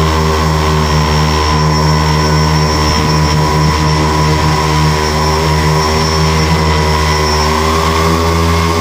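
Tricopter's electric motors and propellers running with a steady, loud whine, the pitch rising slightly near the end.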